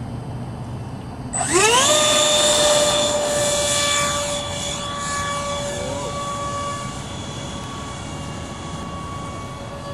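Electric motor of a GWS F-15 foam RC jet throttling up about a second and a half in: a whine that rises quickly in pitch, then holds steady at full power as the model takes off from grass and climbs away, slowly fading.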